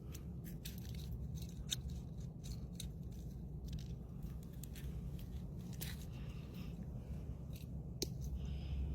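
Scattered small clicks and scrapes of hands and tackle working a hook out of a bass's mouth, over a low steady rumble.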